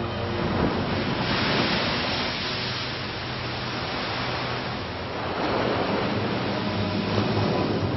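Slowed-down rush of splashing seawater as a great white shark breaches and crashes back into the sea, a heavy noisy surge that swells about a second in and again past the middle.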